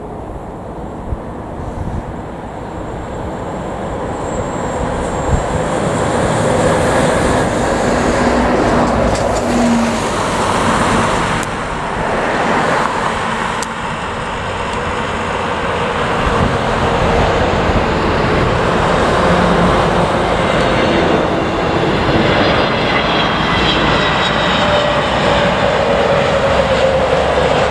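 Airliner's jet engines passing, building over the first several seconds and then running loud and steady, with a whining tone that falls in pitch near the end.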